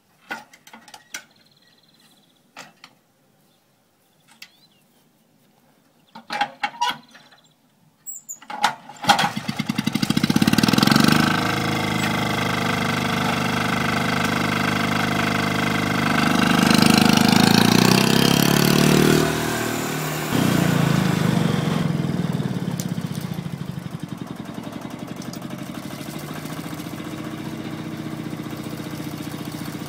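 Vintage single-axle walking tractor: a few clicks and knocks as it is readied, then its engine starts about nine seconds in and runs. It revs up and down twice, then settles to a steadier, lower run near the end.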